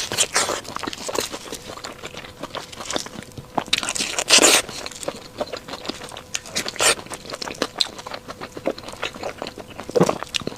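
Close-miked eating of a burger: crisp bites and moist chewing with many small clicks, and a louder crunchy burst about four seconds in.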